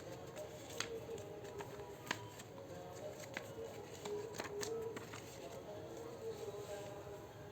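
Handling noise: scattered light clicks and rustling, over a faint wavering hum.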